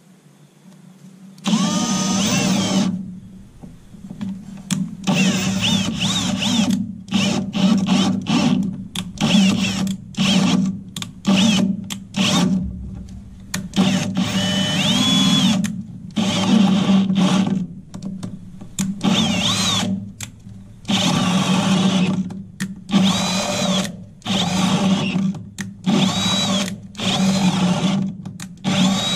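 Cordless drill boring a spade bit into wooden truck-bed planks, run in many short bursts that start and stop again and again, the motor pitch rising at the start of some bursts.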